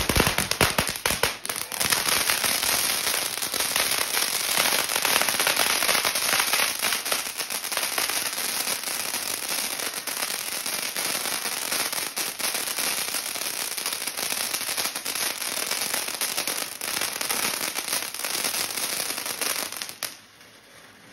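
Ground firework fountain going off: a few sharp bangs at the start, then dense, continuous crackling as it sprays sparks and crackling stars, cutting off suddenly near the end.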